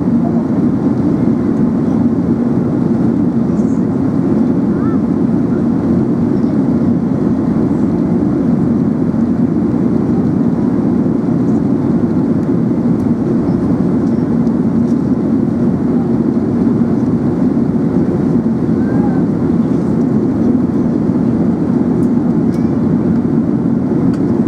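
Steady cabin noise of an Airbus A380 in flight: a constant low rush of engines and airflow, unchanging in level.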